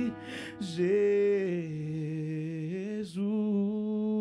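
Male gospel singer singing long held notes into a handheld microphone, the pitch dipping and rising between them, with a short breath taken about half a second in and another about three seconds in.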